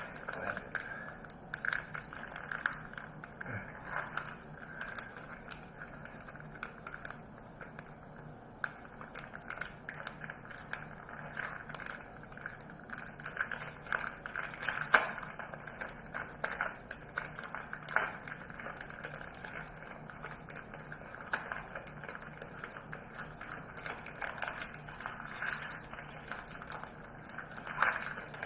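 Crackling and irregular clicks of plastic packaging being handled as a new ink cartridge is unwrapped, with a few sharper clicks along the way.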